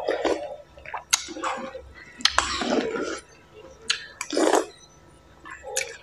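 Close-up eating sounds: slurping noodle soup and chewing in irregular wet bursts, with a few sharp clicks in between.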